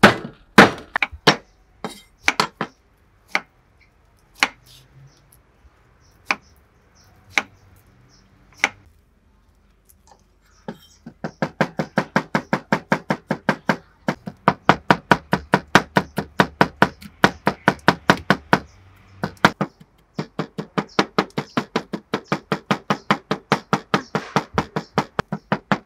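Kitchen knife chopping on a wooden cutting board. For the first several seconds it makes scattered single cuts. About eleven seconds in it changes to fast, steady chopping at about four or five strokes a second, which pauses briefly about two-thirds of the way through and then resumes.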